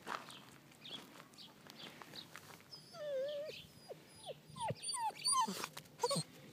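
Bernese mountain dog puppy whining: footsteps crunch on gravel at first, then about three seconds in comes a wavering whine, followed by a string of short falling whimpers.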